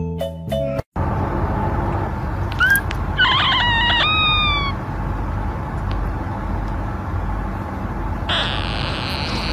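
A moment of mallet-percussion music cuts off, then a very young kitten mews: a few short, high squeaky calls that rise and fall about three seconds in, over a steady low rumble.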